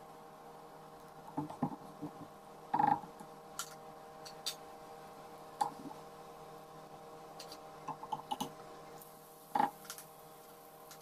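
Scattered clicks and knocks of a wooden stick against a saucepan and its hot oil while sfenj doughnuts deep-fry, with two louder knocks, about three seconds in and near the end. A steady hum runs under them.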